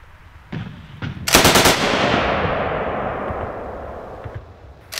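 Bren light machine gun firing a short burst of about half a dozen rounds a little over a second in, the report echoing and fading away over the next few seconds. Another burst starts near the end.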